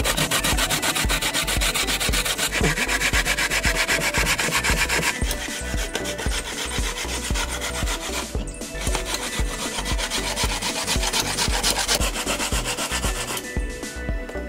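Dry coconut flesh being grated by hand on a metal box grater over an aluminium pot: fast, steady rasping strokes. There are short pauses about eight seconds in and near the end.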